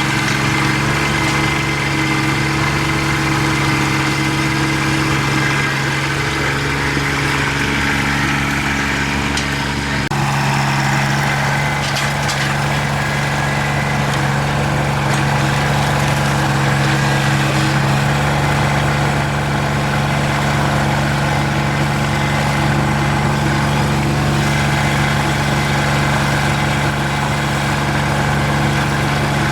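Kubota BX23 compact tractor's three-cylinder diesel engine running steadily at a constant speed, its note shifting slightly about ten seconds in.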